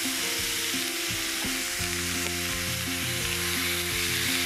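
Marinated pork belly sizzling steadily in a hot nonstick frying pan as the slabs are laid in, with background music playing underneath.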